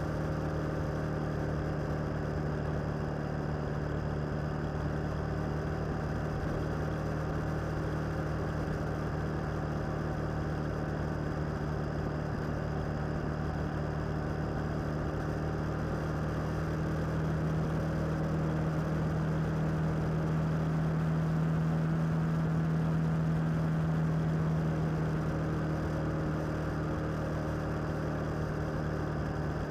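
Motorcycle engine running at a steady cruise, its pitch and loudness rising slightly for several seconds past the middle, then settling back.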